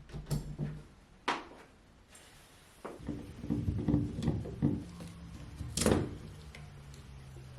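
Indoor knocks and thuds of things being handled: a few single sharp knocks, with a run of clattering about three to five seconds in and the loudest knock near six seconds.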